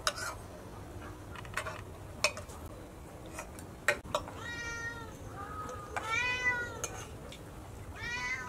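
A few sharp clinks of a fork on a plate, then a cat meowing four times in the second half; the third meow is the longest and loudest.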